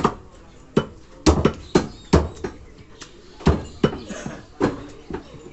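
Large butcher's knives chopping beef on round wooden log blocks: irregular heavy strikes of blade through meat into wood, about a dozen of them, some in quick pairs.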